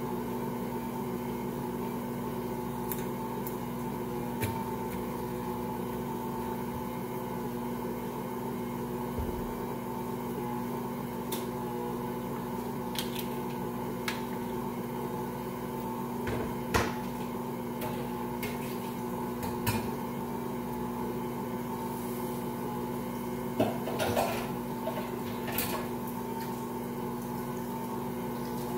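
Ankarsrum stand mixer running steadily, its motor humming as the rotating steel bowl kneads a large batch of bread dough against the roller and scraper. Short sharp knocks come now and then, the loudest about two-thirds of the way through.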